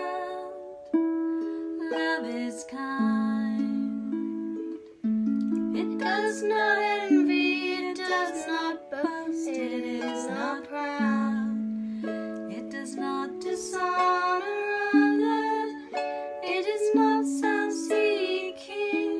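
Small harp plucked in a slow accompaniment, with singing voices carrying a slow melody over it. The voices waver in pitch most clearly through the middle.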